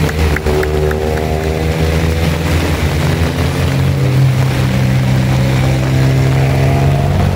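Hillclimb rally cars' four-cylinder engines working through a wet hairpin: the engine note falls over the first few seconds as a car slows for the bend, holds, then climbs near the end as a car accelerates away. A steady hiss of rain and tyre spray off the flooded road runs under the engines.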